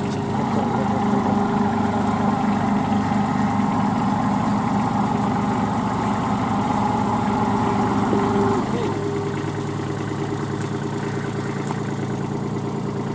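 Kubota B2441 compact tractor's three-cylinder diesel engine running steadily at raised revs while the tractor is bogged in deep mud, then dropping to a lower, quieter engine speed about nine seconds in.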